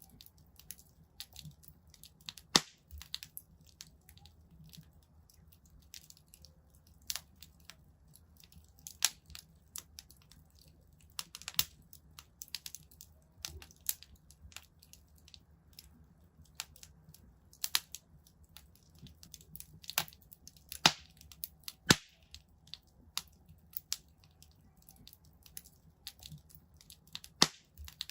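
Wood fire burning in a fireplace, crackling with irregular sharp pops and snaps over a faint low rumble of the flames.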